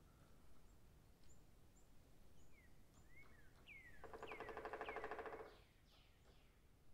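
Forest birds giving short chirps and whistles. About four seconds in comes a louder, rapid buzzing rattle that lasts about a second and a half.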